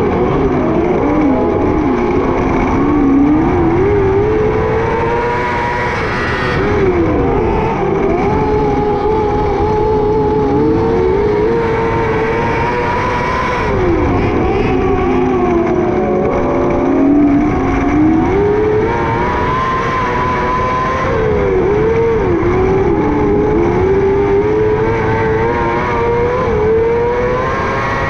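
600cc micro sprint car's four-cylinder motorcycle engine at racing speed. Its pitch climbs under throttle and drops away sharply every few seconds as the driver lifts for the corners, lap after lap.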